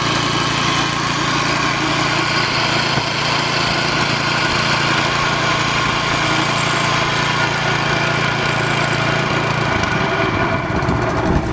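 Kohler XT-6.75 single-cylinder engine on a walk-behind string trimmer running steadily. Its low engine note drops out about ten seconds in.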